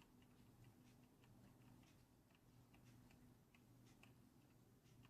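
Keyboard keys pressed softly, one after another: faint light clicks of the key switches, about three a second, over a faint steady low hum.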